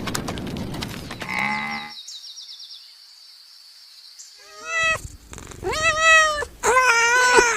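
The tail of a cow's moo near the start, then, after a short lull, a cat meowing three times, each meow rising and falling in pitch.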